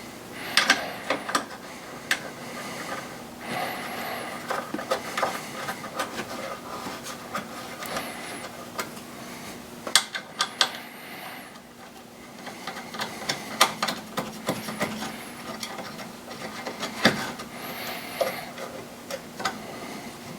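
Small metal clicks, clinks and rattles of bolts being handled and threaded back into the secondary air pump's bracket by hand, with a few sharper knocks.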